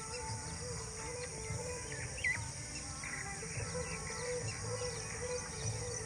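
Rural dawn chorus: many birds chirping and calling in short, overlapping notes, over a steady low rumble and a high, even drone.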